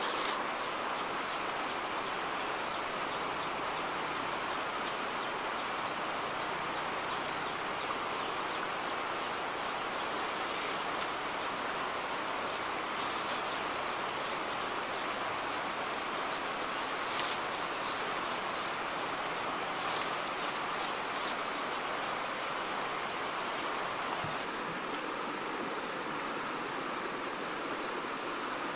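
Insects calling in one unbroken, steady high-pitched drone, over a constant background hiss.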